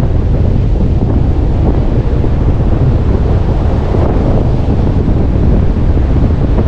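Strong wind buffeting the microphone loudly and steadily, over surf breaking on the beach.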